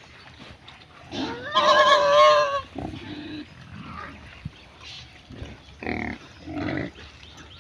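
A pig squeals once, loud and pitched, for about a second and a half starting a little over a second in, then makes two shorter, lower calls near the end.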